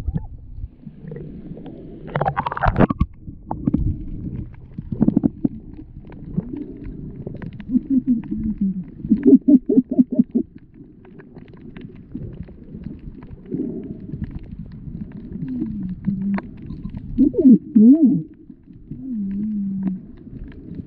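Muffled underwater sound from a submerged camera: low rumbling and water movement, with a splash about two and a half seconds in and several short, low, wavering tones later on.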